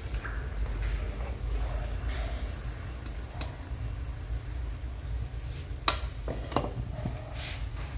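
Gas burner flame giving a steady low rumble under a pan of simmering sauce. A spatula stirs and scrapes in the pan, knocking sharply against it twice about three-quarters of the way through.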